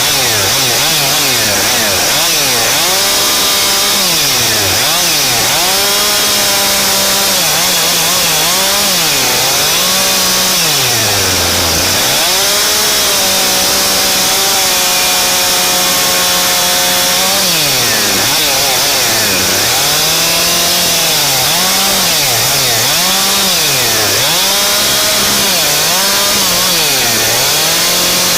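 Husqvarna chainsaw engine cutting, revving up and dropping back over and over as the throttle is worked. It holds a steady high pitch for several seconds in the middle.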